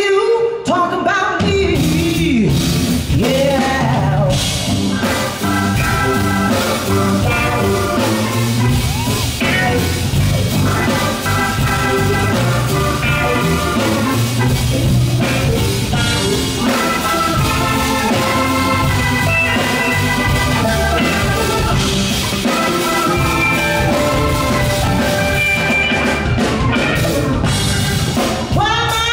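Live band playing an instrumental passage: drum kit and bass under electric guitar, organ and piano.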